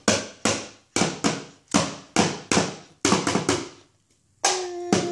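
A child drumming with a pair of sticks on a cardboard box and a plastic rock: sharp taps in an uneven rhythm, about two to three a second. About four and a half seconds in, he starts singing over the taps.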